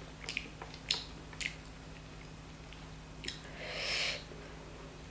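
Close-up eating sounds of a person chewing chicken curry and rice: scattered short wet smacks and clicks, with a longer hissing swell about four seconds in, and a faint steady electrical hum underneath.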